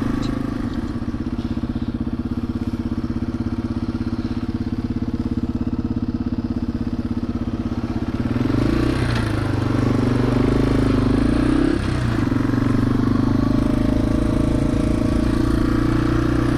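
Yamaha TW200's single-cylinder four-stroke engine running as the motorcycle rides along at low speed. About eight seconds in it revs up as the bike accelerates, with a brief drop in revs near twelve seconds before it settles into a steady run.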